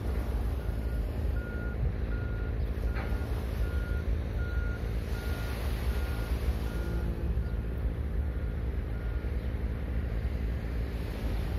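A vehicle's reversing alarm beeping on one steady tone, about three beeps every two seconds, growing fainter before it stops. Underneath is a steady low rumble of wind and surf.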